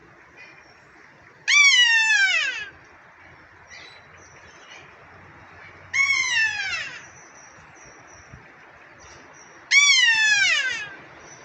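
Kea squealing three times, about four seconds apart: each call is a loud, drawn-out cry of about a second that slides down in pitch, air-horn-like.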